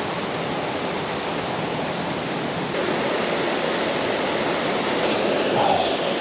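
Steady rushing roar of a waterfall about thirty feet high, heard from the pool below it; it gets slightly louder about three seconds in.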